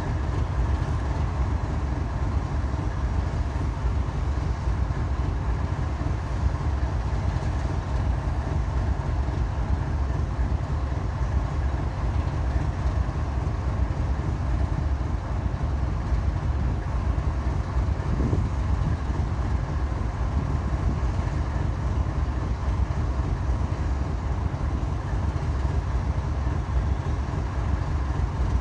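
Steady low rumble of distant diesel locomotives running in a rail yard, with a faint steady engine hum over it.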